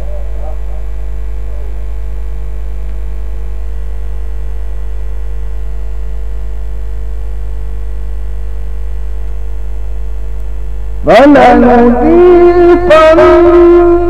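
Steady electrical mains hum, then about eleven seconds in a man's voice begins melodic Quran recitation (tilawat), holding long, drawn-out notes.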